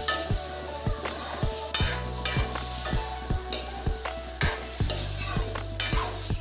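Bamboo shoots sizzling in a hot aluminium kadhai while a metal ladle stirs and scrapes through them, the sizzle flaring up in several loud hissing bursts. Background music with a steady beat runs underneath.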